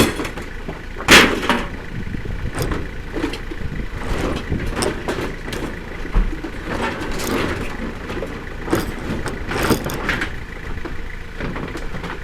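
Scrap metal being unloaded and sorted: irregular clanks and knocks, with two loud bangs at the start and about a second in, over a steady low rumble.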